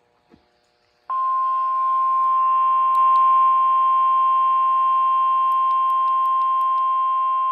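Emergency weather alert attention tone, the weather-radio warning alarm: a loud, steady beep near 1 kHz with fainter tones mixed in. It starts about a second in after a brief quiet and holds unbroken, announcing an incoming severe thunderstorm warning.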